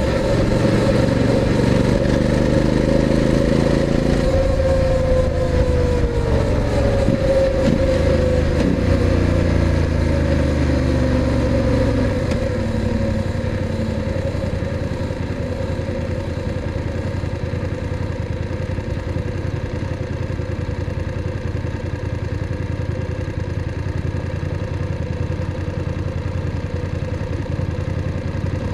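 BMW F850 GS's parallel-twin engine running under way, its note gliding down as the bike slows. About twelve seconds in it drops to a quieter, steady idle.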